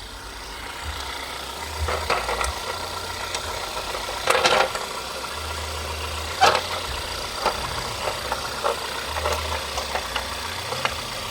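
Plastic engine cover being refitted on the VW MK6 twincharger engine: several clunks and clicks as it is pressed onto its mounts, the loudest about two, four and six seconds in, over a low, uneven rumble.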